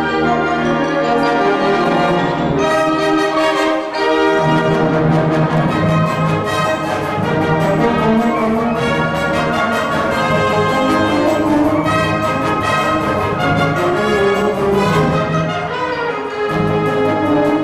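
Large wind band playing, with the brass prominent over the full ensemble and the low brass filling in about four seconds in.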